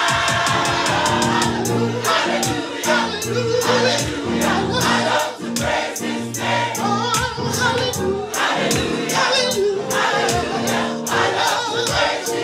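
Gospel choir singing in harmony over held backing notes and a steady beat.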